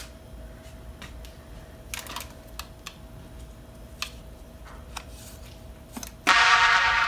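Scattered light plastic clicks and taps as a toy foam-dart blaster is handled and foam darts are loaded into its six-barrel drum. Near the end a loud ringing chime starts suddenly and slowly fades.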